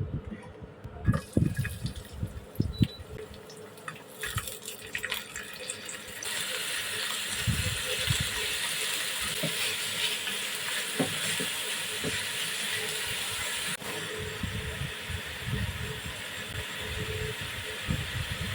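Kitchen tap turned on about six seconds in, water running steadily into a sink, with knocks and clatter of handling before and under it.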